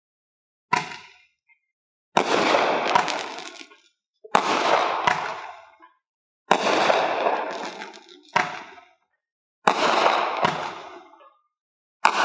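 Viper Strike 200-gram nine-shot aerial repeater cake firing a shot about every two to three seconds. Each shot is a sharp bang followed by a long crackling tail from the lace stars, with a second crack partway through.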